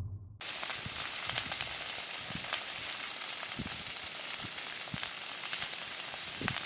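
Brush fire burning: a steady crackling hiss with many scattered sharp pops, cutting in abruptly about half a second in.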